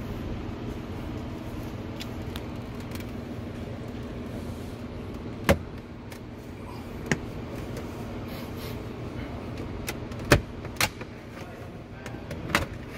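Sharp plastic clicks and knocks, about five of them spread over the second half, from the trim fascia of a car's center console being pried off its clips, over a steady low background hum.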